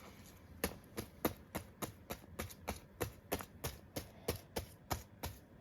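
Glitter slime being dabbed again and again onto a mat to pick up loose glitter: a quick, even series of short taps, about three or four a second.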